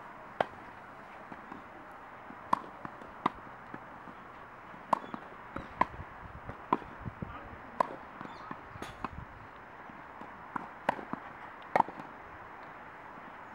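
Tennis balls struck by rackets and bouncing on the court during a rally: sharp pops, one every second or so, some coming in quick pairs.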